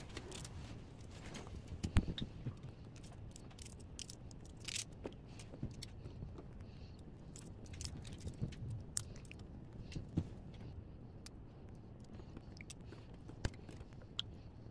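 Garlic cloves peeled by hand over a steel bowl of water: papery skins crackling and rustling, with scattered small clicks and one louder knock about two seconds in.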